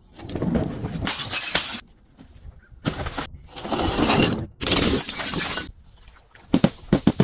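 Glass bottles being smashed: a series of shattering, crunching crashes, then a quick run of sharp cracks and clinks near the end.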